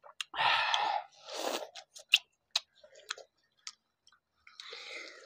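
Several people biting into and chewing juicy raw watermelon slices: a few wet bites at the start and again near the end, with scattered sharp smacking clicks of chewing in between.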